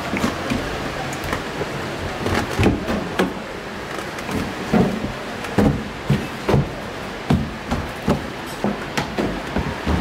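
A string of short knocks and thuds of a hard plastic washing-machine cabinet being handled and pressed into place by hand, about one or two a second and coming more often in the second half, over steady workshop background noise.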